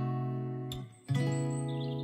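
Background music: an acoustic guitar chord ringing out, then a new chord strummed about a second in.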